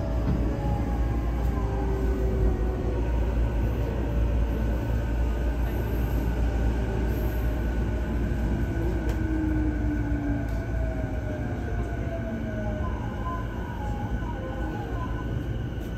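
JR East E233-2000 series train's Mitsubishi IGBT-VVVF inverter and traction motors whining under braking, several tones sliding down in pitch as the train slows into a station, over a steady low rumble of wheels on rail, heard from inside the motor car.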